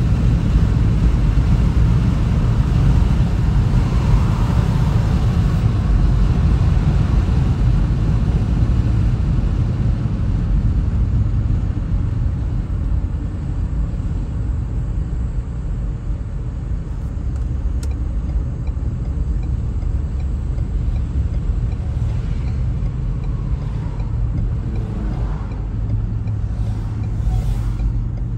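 Car driving on a road: a steady low rumble of tyres and engine that eases slightly about halfway through, with a few faint rising tones near the end.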